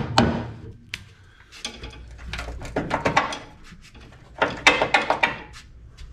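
Clattering metallic knocks and clanks of hand tools working on the bus's underside, in two bursts: one from about one and a half to three seconds in, another around four and a half to five and a half seconds.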